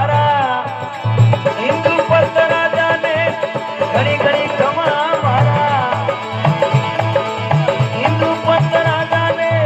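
Rajasthani folk bhajan music: a hand drum keeps a steady beat under an ornamented, wavering melody line.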